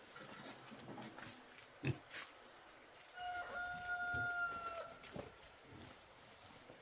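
A rooster crowing once, one long call of nearly two seconds starting about three seconds in, over a steady high drone of crickets. There is a short sharp knock a little before it.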